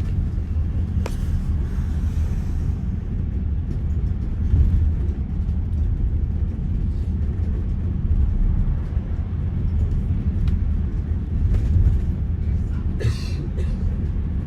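Steady low rumble of a moving vehicle, with a brief breathy hiss near the end.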